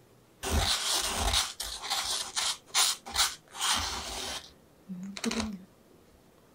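Wooden spoon digging into granulated sugar in a glass clip-top jar: a run of gritty scrapes and short crunches as sugar is scooped, then a few light knocks about five seconds in.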